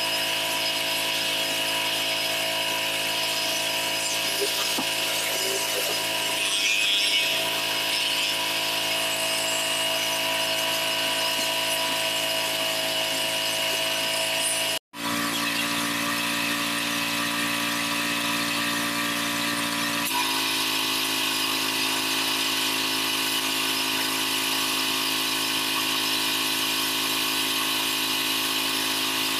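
Pressure washer running steadily, its high-pressure water jet hissing on concrete pavers. The sound cuts out for an instant about halfway, and the machine's tone shifts after it.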